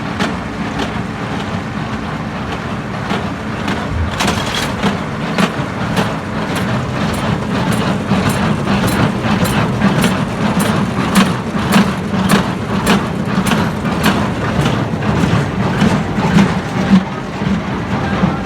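Tractor running a small square baler in the field, with a steady engine hum and sharp, regular knocks about twice a second from the baler's working strokes.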